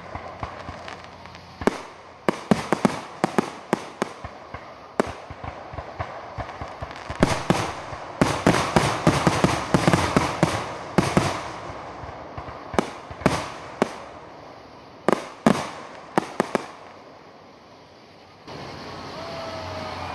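Aerial fireworks shells bursting with many sharp bangs, packed into a rapid run of reports in the middle, then thinning to a few scattered bangs that die away near the end.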